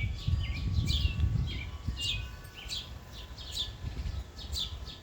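Small birds calling in quick chirps that each fall in pitch, two or three a second, over an uneven low rumble.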